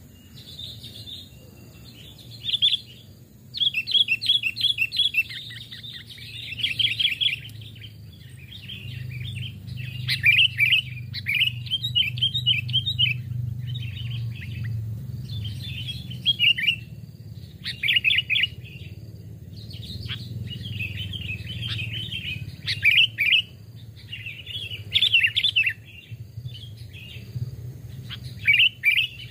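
Kutilang (sooty-headed bulbuls) calling in short bursts of bright chirping phrases, a new phrase every second or two, over a low steady hum.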